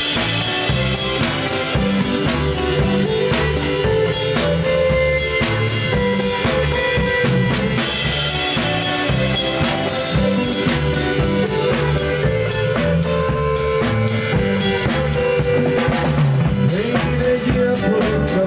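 Live band playing an instrumental passage: a drum kit beat with snare and bass drum under bass and held melody notes. Near the end the drums break into a fast run of strokes.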